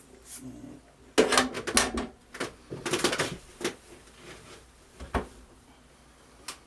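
Handling noises: two bursts of clattering clicks and rattles in the first half, then two single sharp knocks.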